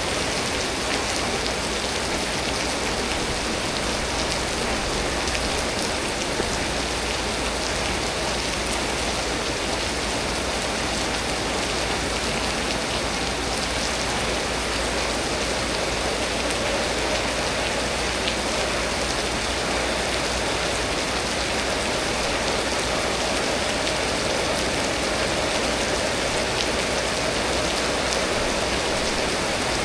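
Steady storm rain pouring down, an unbroken hiss of drops hitting surfaces.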